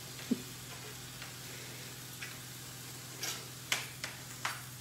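Kitchen knife dicing tomato on a plastic chopping board: about half a dozen irregular knife taps and slices over a steady low hum.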